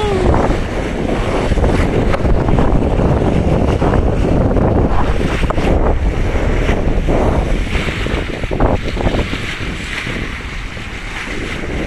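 Wind buffeting the microphone over the steady rush and splash of sea water along a sailing yacht's bow as it moves through the waves.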